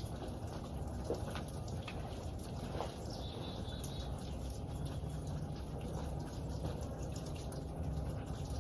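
Outdoor woodland ambience: a steady low rumble with a few faint scattered ticks, and a faint high wavering chirp about three seconds in.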